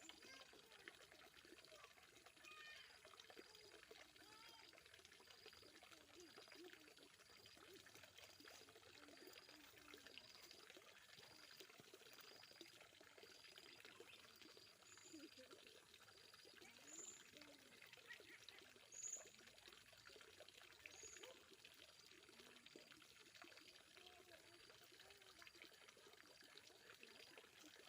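Near silence: faint pond-side ambience with a high chirp repeating about once a second, a faint trickle of water, and four short high chirps about two-thirds of the way through.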